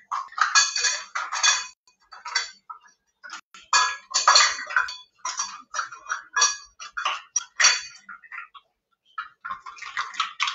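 Kitchen utensils and dishes clinking and clattering in irregular bursts, with quiet gaps between them.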